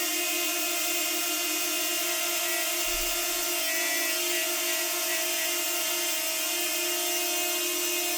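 DJI Flip drone's propellers running in flight, a steady multi-tone hum with a brief low bump about three seconds in.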